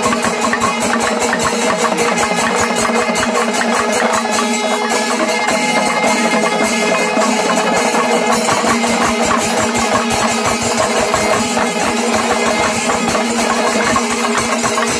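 Panchavadyam temple ensemble playing at full tilt: a dense, very fast stream of timila drum and ilathalam cymbal strokes with the held blare of kombu horns over it. This is the kalasam, the closing flourish of the fifth and fastest tempo stage.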